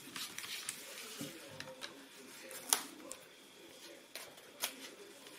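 Sharp plastic clicks and taps from a laptop display lid and its front bezel being handled and laid down, with one louder click about halfway through and two more near the end.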